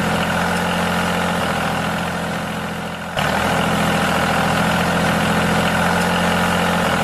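Steady motor hum from a DIY mini tractor pulling a cultivator through sand. It sags slightly, then comes back abruptly about three seconds in.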